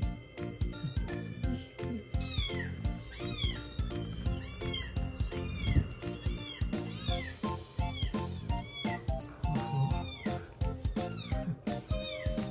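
Young calico kitten mewing over and over at the milk bottle, short high cries that rise and fall, about one or two a second, starting about two seconds in. Background music with a steady beat plays underneath.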